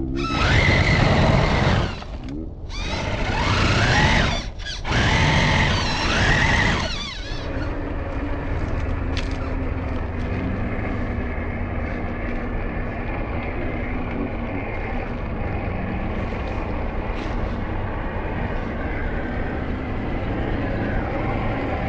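Whine of an RC scale crawler's electric motor and gears, rising and falling in pitch as it revs in bursts for the first few seconds with two short breaks, then running more steadily and quieter.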